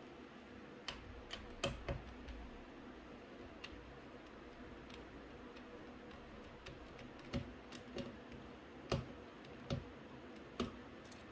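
Scattered sharp clicks and taps of a precision screwdriver working small screws out of a graphics card's metal backplate, with the screws being handled and set down. A few clicks come about a second in, then a cluster of louder ones in the second half.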